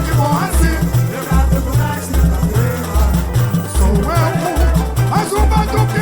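Samba school drum section playing a samba-enredo: deep surdo bass-drum strokes on a steady beat, about one every 0.8 s, under shakers and a melodic line.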